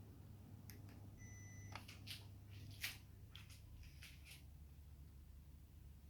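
Faint low steady hum with one short electronic beep a little over a second in, and a run of light clicks over the next few seconds.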